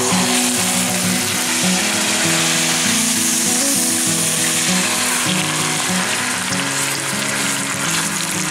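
Pork tenderloin roast searing in hot oil in a frying pan: a steady, loud sizzle of bubbling oil.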